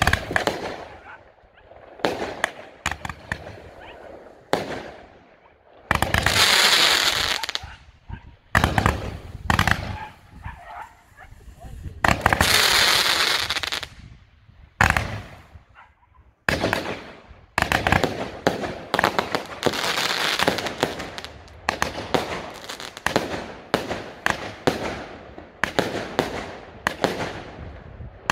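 Fireworks display: a rapid, irregular series of bangs as shells and comets launch and burst. Two longer hissing stretches last a second or two each, about six and twelve seconds in.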